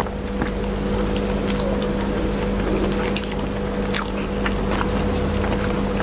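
A steady low rumble fills the sound and comes up suddenly at the start, with scattered faint clicks and crunches of people chewing crispy fried cheese-potato snacks.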